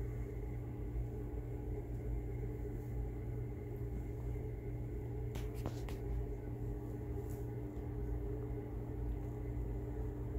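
A steady low hum, with a few faint clicks about halfway through.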